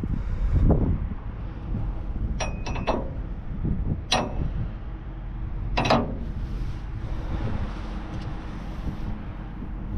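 A machine engine runs steadily, and several sharp metal clangs ring out over it, about five between the third and sixth seconds.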